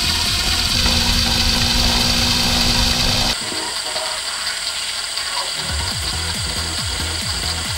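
Cordless drill spinning a hex-shaft drill-driven mini pump that pumps gear oil up a tube into the transmission: a steady motor whir. The whir drops to a lower level suddenly about three seconds in. Electronic background music plays underneath.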